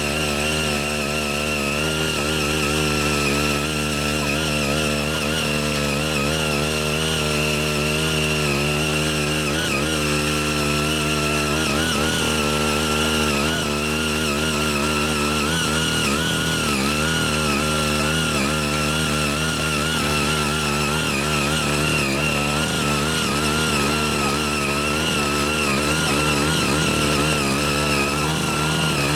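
Ching Yee CY80 mini rotary tiller's 5 hp engine running steadily under load as its six rotary tilling blades dig into the soil, the engine note wavering slightly as the tines bite.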